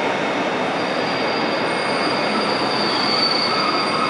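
A passenger train hauled by a PKP EP07 electric locomotive running into an underground platform: a steady rumble of the train, with a thin, high-pitched wheel squeal setting in about a second in as it slows to a stop.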